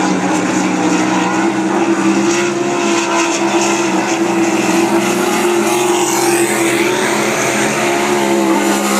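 Winged sprint car's 410 cubic-inch V8 running flat out around the track on a time-trial lap, a loud steady drone that wavers slightly in pitch.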